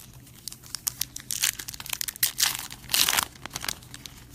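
A trading card pack wrapper being crinkled and torn open by hand: a run of sharp crackles and rustling, loudest about three seconds in.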